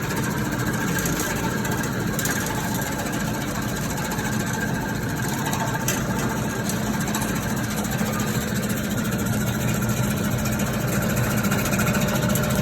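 Shallot and lemongrass slicing machine running, a steady motor hum.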